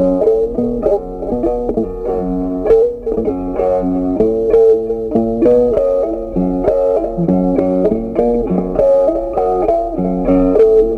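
Background instrumental music: a plucked string instrument, guitar-like, playing a melody of short notes.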